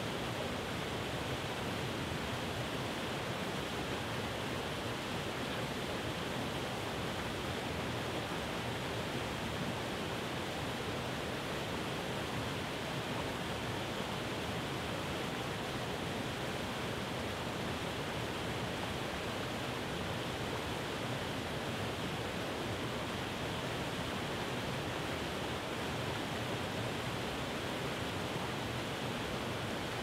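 Waterfall cascading over rock: a steady, unchanging rush of falling water.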